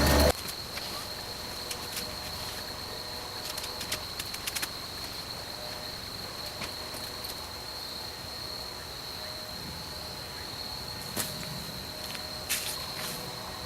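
Crickets trilling steadily on one high note, with a few scattered clicks and knocks.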